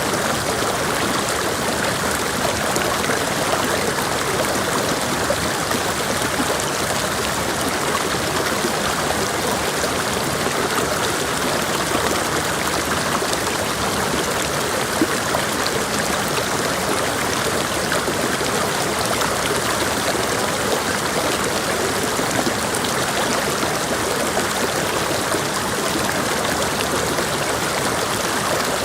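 Mountain creek water rushing and babbling over rocks, a steady, unbroken flow.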